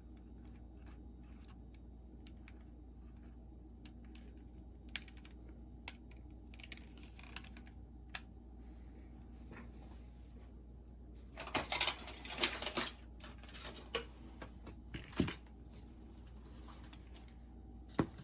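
Scattered small clicks and handling of a Sony WM-FX28 cassette Walkman as its controls are tried after a belt replacement, with a denser patch of clicking and rustling about twelve seconds in. No tape motor is heard running: the Walkman is not playing.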